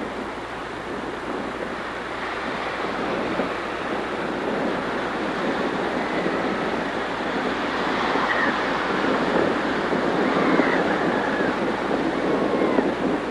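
Ocean surf breaking and washing ashore, a steady rushing that slowly swells louder.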